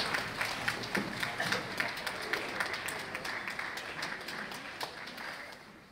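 Concert audience applauding, the clapping thinning out and dying away near the end.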